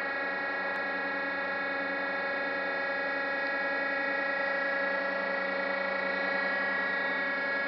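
GMC plate roll's electric drive motor and gearbox running, a steady whine made of many fixed tones at an even level.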